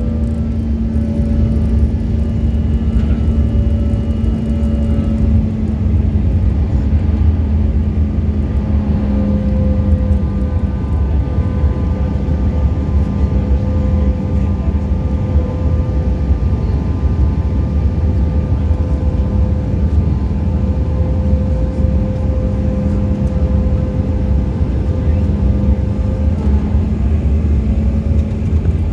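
Jet airliner cabin noise heard from a window seat: a steady low rumble of engines and airflow with a constant engine hum on top, as the plane climbs out after takeoff.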